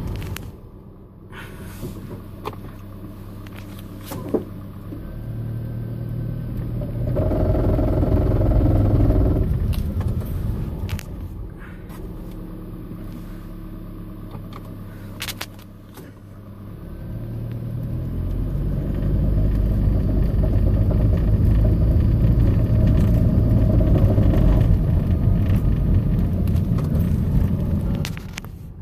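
A 2010 Toyota Prius driving at low speed. Its engine and road noise rise and fall: a louder stretch about a quarter of the way in, quieter for several seconds, then louder again over the last third. A single sharp click comes about four seconds in.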